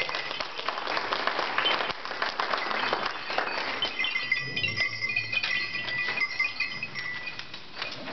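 Clicks, clinks and rustling as acoustic instruments, music stands and sheets of paper are handled, with a faint high steady tone coming and going behind it.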